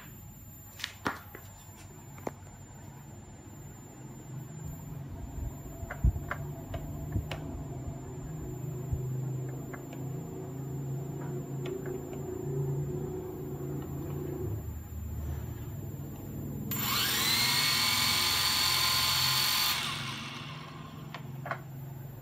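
Hubsan H507A+ quadcopter's motors spinning up to a steady high whine for about three seconds, then winding down. Before it there are a few sharp clicks and a low hum.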